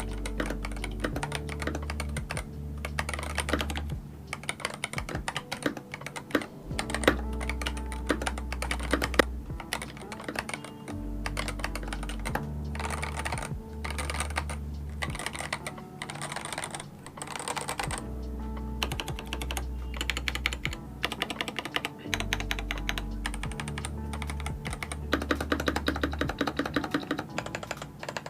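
Typing on a Skyloong GK980 mechanical keyboard: a dense, continuous stream of keystrokes. Lofi background music with a recurring bass line plays underneath.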